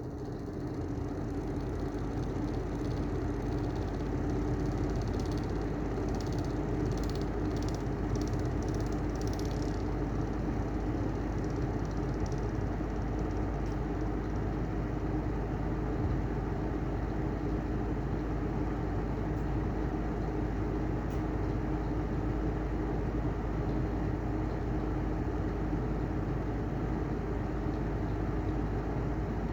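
Heller style 2 exhaust fan running with bad bearings: a steady hum over a rough, noisy whir that builds up over the first few seconds and then holds level. Faint high ticks come about twice a second from about five to ten seconds in.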